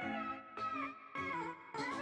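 Background music with a steady beat: a chord struck a little under twice a second, with a sliding melody line above it.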